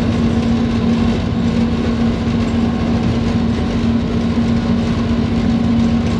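Cab noise of a GEU-40 diesel-electric locomotive running at speed: a steady engine drone and the rumble of the train on the track, with a steady hum held throughout.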